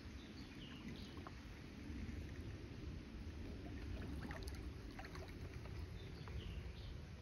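Outdoor creek-side ambience: a low steady rumble with a few faint bird chirps near the start and near the end, and some light ticks in the middle.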